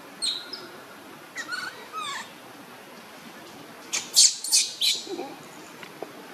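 Newborn macaque crying with short, thin calls that glide in pitch through the first two seconds, then three or four louder, shrill squeals in quick succession about four seconds in.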